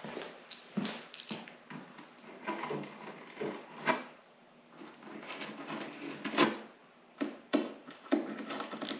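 A hand deburring tool scraping and clicking around freshly drilled holes in a snowmobile's tunnel, cleaning burrs off the hole edges: a run of short, irregular scrapes with a couple of brief pauses.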